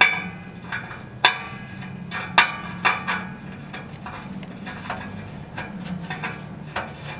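Metal clinks and taps of a socket on a new oxygen sensor as it is threaded into the exhaust pipe. There are sharp, briefly ringing clinks at irregular intervals, the loudest in the first three seconds, over a steady low hum.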